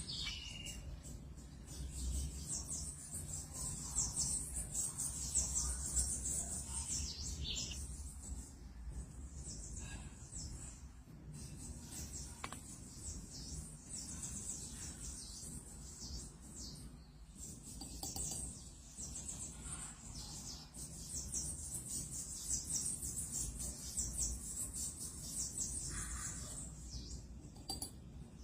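Outdoor ambience of steady high-pitched insect chirring, with a few short bird chirps and a low rumble underneath.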